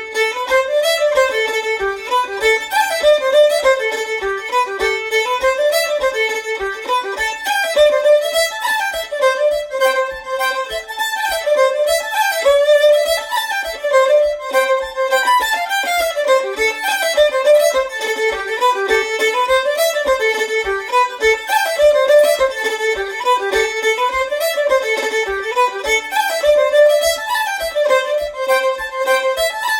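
Solo fiddle playing a Cape Breton-style Scottish dance tune: a quick, unbroken run of bowed notes, with a steady low tap keeping the beat underneath.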